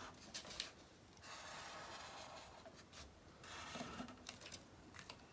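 Felt-tip marker drawn across folded card in a few strokes, a faint rubbing of the tip on the paper, with a couple of light clicks about half a second in.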